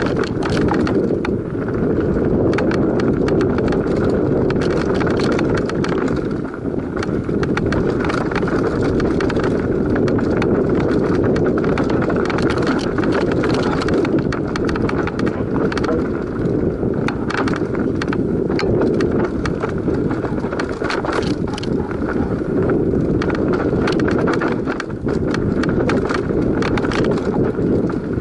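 Enduro mountain bike descending a rough, stony dirt trail at speed: a steady rumble of tyres over dirt and rock, with constant rattling and sharp knocks from the bike over the bumps.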